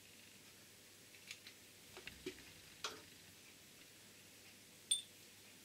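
Small steel parts and pliers clicking and tapping as they are handled on a metal bench vise, a few light ticks in the first half, then one sharp metallic clink that rings briefly, about five seconds in, as a small steel piece is set down on the metal.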